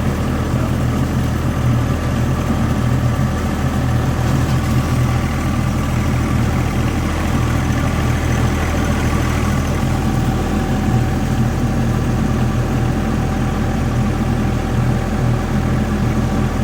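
Vehicle engine running steadily close by, with a slight change in its note about two-thirds of the way through.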